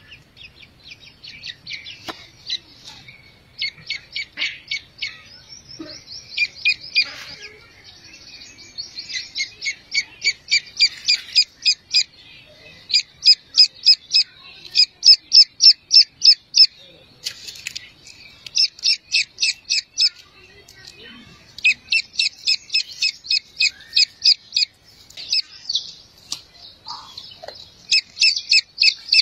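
Young game-bird chicks peeping: quick runs of high, sharp peeps, about six a second, in bouts of a few seconds with short pauses between.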